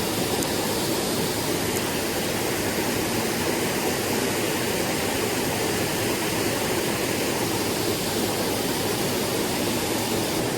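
Mountain stream water rushing steadily, an even unbroken hiss of flowing water.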